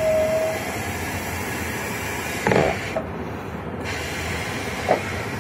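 A latex balloon being blown up by mouth: a steady rush of breath into the balloon, broken by a short pause and quick intakes of breath about halfway through and near the end.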